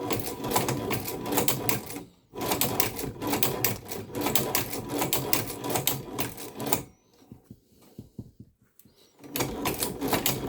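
Chinese shoe patcher sewing machine stitching in three runs of rapid mechanical clatter. The runs are broken by a brief stop about two seconds in and a longer pause of about two seconds near the end.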